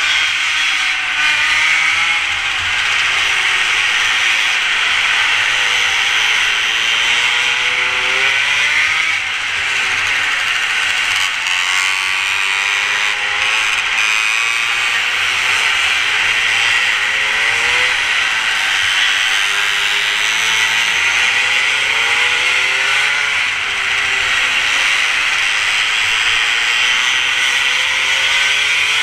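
Mini moto's small engine revving up and easing off again and again as it laps, its pitch rising and falling every few seconds over a steady hiss.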